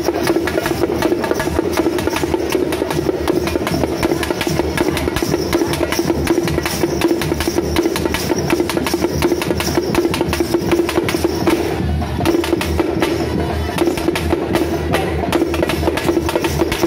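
Dappu frame drums beaten with sticks in a fast, dense, unbroken rhythm over a steady ringing tone, easing off briefly about twelve seconds in.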